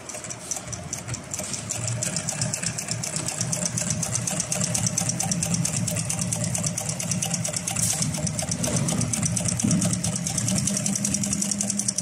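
HighTex 7560N double-needle walking-foot industrial sewing machine running steadily, sewing a lap seam with a rapid, even clatter of needle strokes. It picks up in loudness about two seconds in.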